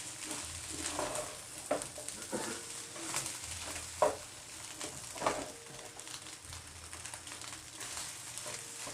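A spatula stirring and scraping food in a frying pan over a faint sizzle, with irregular knocks against the pan, the sharpest about four and five seconds in.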